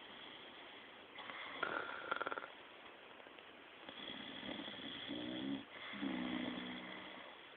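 Snoring: a fluttering, rattling snore about a second in, then two shorter droning snores in the second half.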